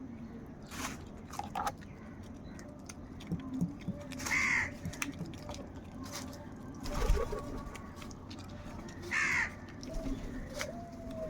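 Crows cawing: two loud harsh caws, about four and nine seconds in, among shorter calls. A low thump about seven seconds in is the loudest moment.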